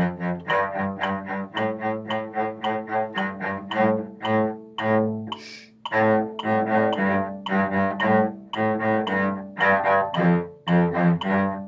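Solo cello playing a march tune in A minor with short, separate bow strokes, about four notes a second, with a brief break about five and a half seconds in.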